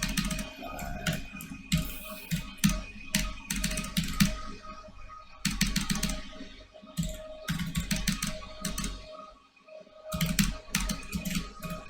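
Computer keyboard typing: rapid keystrokes in bursts with short pauses between them.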